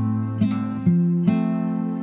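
Background music: acoustic guitar strumming chords, a new strum a little more than twice a second.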